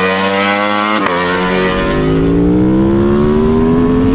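V4 sport motorcycle engine accelerating hard: a steady note, a sharp break about a second in, then the pitch climbing steadily as it revs up through a gear.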